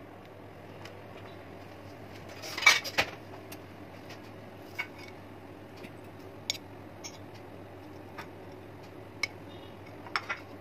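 Metal fork clinking and scraping against a glass Pyrex baking dish, with a louder clatter about two and a half seconds in and single light clinks after it. A low steady hum runs underneath.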